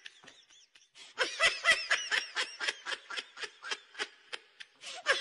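A person laughing: after a near-quiet first second, a fast run of short, high-pitched laughs, about four to five a second.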